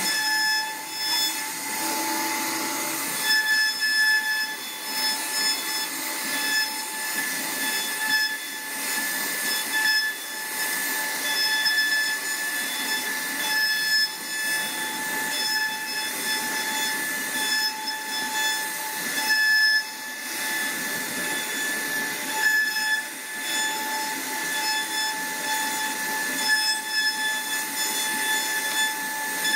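CNC router spindle running with a steady high-pitched whine while its bit cuts wood, over a rough cutting noise that swells and fades.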